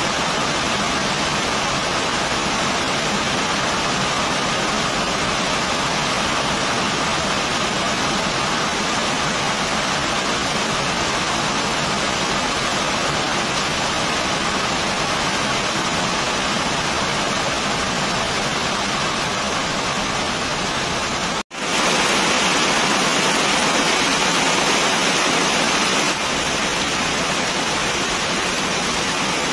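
Heavy rain pouring steadily. About two-thirds of the way through, the sound cuts out for an instant and returns a little louder for a few seconds.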